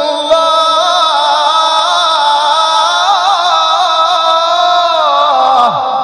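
Male Quran reciter's voice in tajweed recitation, holding one long melismatic note with ornamental wavers in pitch, then sliding downward and breaking off near the end.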